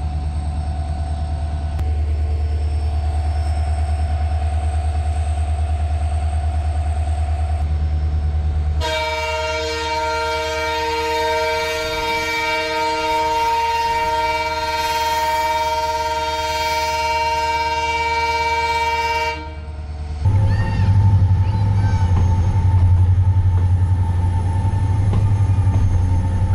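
Diesel locomotive engine running with a steady low hum, then a long locomotive horn blast of about ten seconds, a steady chord that starts and stops abruptly. After the horn, the engine's low running hum comes back.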